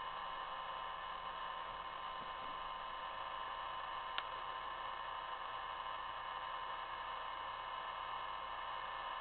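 Steady hiss with a faint steady hum, unchanging throughout, broken only by a single brief click about four seconds in.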